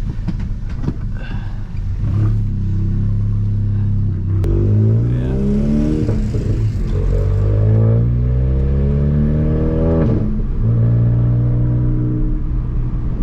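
Volkswagen MK7 GTI's turbocharged 2.0-litre four-cylinder, stage 2 tuned, pulling hard through the gears. Its pitch climbs and drops back at each of a few upshifts, then it settles to a steady cruise near the end. The exhaust is loud, with a Borla S-type catback that has no muffler and a downpipe with a small cat.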